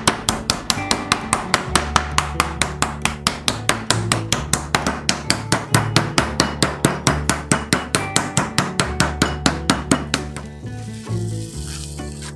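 Flat-faced metal meat pounder striking chicken breast fillets through cling film on a wooden cutting board, in rapid, even blows about four or five a second that stop about ten seconds in. Acoustic guitar music plays underneath.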